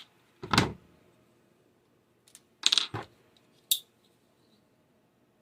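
Small hard objects being handled and set down: a knock about half a second in, then a quick run of clicks near the three-second mark and one sharp click soon after.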